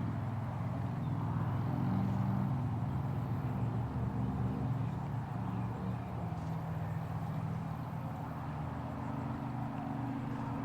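A heavy engine running steadily, its low hum wavering slightly in pitch.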